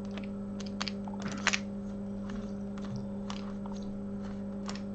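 Steady electrical hum from bench equipment, with a few light clicks and taps of small tools and parts being handled on a repair bench.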